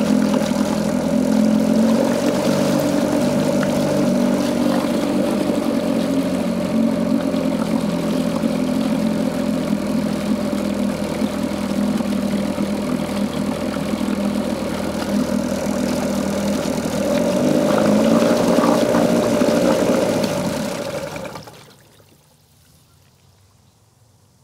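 Small two-stroke outboard motor running on a test run with its propeller in a tub of water. It runs a little louder about 17 seconds in, then stops abruptly about 21 seconds in.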